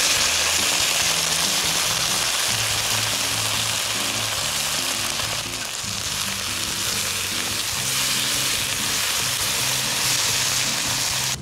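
Chili sauce sizzling and frying in a hot wok with fried mackerel pieces and green onions, a loud steady hiss that cuts off suddenly at the end. Soft background music with changing low notes plays underneath.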